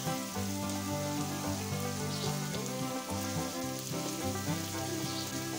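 Chopped onions sizzling in hot oil in a frying pan as a silicone spatula stirs them, with background music playing over it.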